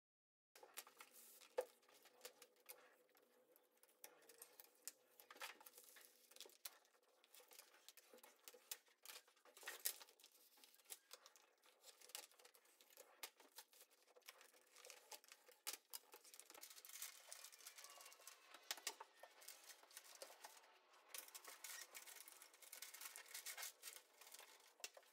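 Faint crinkling and scraping of marble-pattern self-adhesive vinyl film being smoothed onto a countertop with a plastic squeegee card, in many short, irregular rasps.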